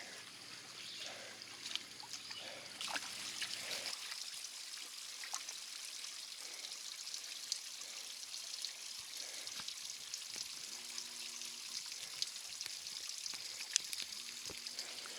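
Small trailside creek trickling, a steady hiss of running water with scattered faint clicks over it.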